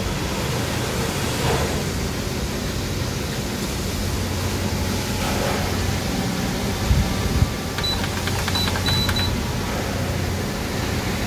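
Canon iR3225-series copier running with a steady fan-and-motor hum while it finishes installing toner. About seven seconds in there are two dull thumps, then several short, high, same-pitched key beeps as the yellow reset button on the control panel is pressed repeatedly.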